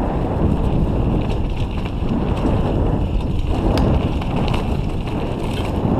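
Mountain bike rolling fast over a dry dirt trail, picked up by a camera mounted on the bike: steady tyre rumble with frequent small knocks and rattles from the bike, one sharper knock just before the middle, and wind buffeting the microphone.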